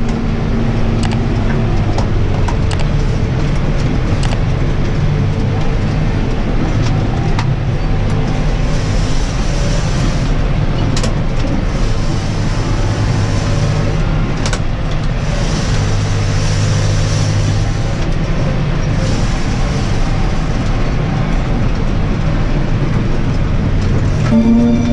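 John Deere 6125R tractor engine running steadily under load while cultivating, heard from inside the cab. Occasional short clicks and rattles sound over the drone.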